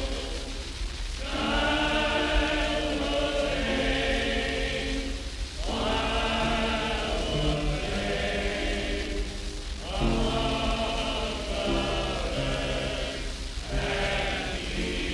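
Barbershop quartet singing sustained close-harmony chords in phrases of about four seconds, with short breaks between them, over a steady low hum.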